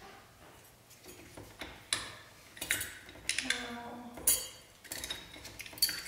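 Irregular metallic clicks and clinks as the front brake caliper of a 2016 Yamaha R6 is worked loose and slid off the brake disc by hand, growing louder from about two seconds in. There is a short metallic ringing tone about halfway through.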